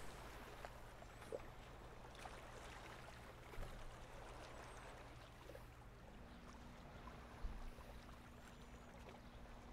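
Near silence: faint outdoor background, an even low hiss with a steady low hum underneath that shifts higher about six seconds in.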